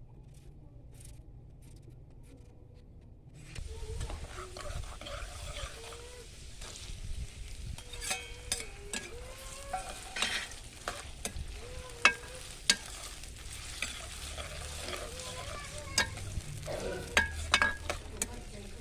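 Food sizzling as it fries in a pan, starting about three and a half seconds in, with sharp knocks of a stirring spoon against the pan now and then.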